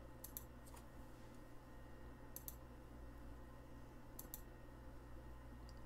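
Near-silent room tone with a low steady hum, broken by faint short clicks that come in pairs roughly every two seconds.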